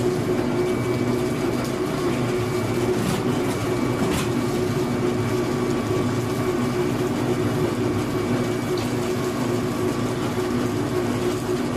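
Screw oil press and its screw feeder running steadily: a constant mechanical hum, with a couple of faint clicks about three and four seconds in.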